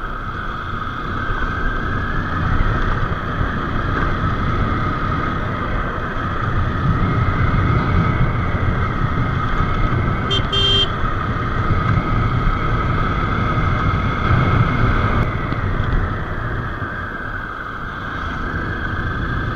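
Motorcycle engine running with road and wind noise while riding, picked up by a bike-mounted action camera; the engine note swells and eases. A short horn toot sounds about halfway through.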